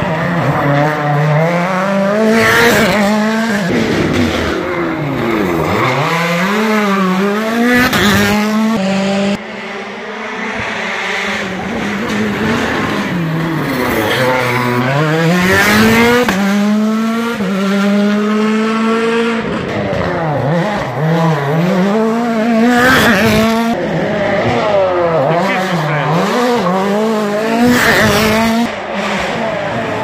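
Rally cars driven hard through a hairpin one after another: each engine's pitch drops under braking and downshifts, then climbs steeply as it revs out through the gears.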